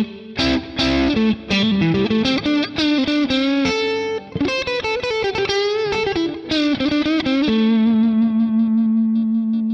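Fender Stratocaster electric guitar played through a Boss Katana 50 MkII amp's crunch channel, recorded direct from the amp over USB. It plays a lead lick of picked notes with string bends, ending on a long held note that cuts off just before the end.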